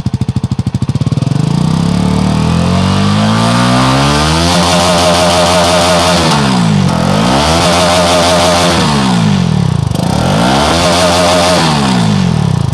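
CFMoto 300NK's single-cylinder engine revved through its underbelly exhaust, standing still: the revs climb steadily for about four seconds and are held high, then drop back and rise again twice.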